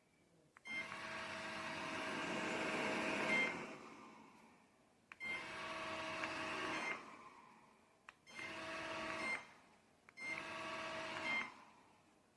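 Airzeen R7 robot vacuum cleaner's motor whirring in four separate stretches, each starting suddenly with a click and dying away within about a second after it stops.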